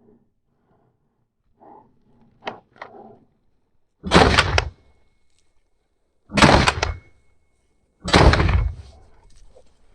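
Three shotgun shots about two seconds apart, each a sharp blast with a short trailing echo.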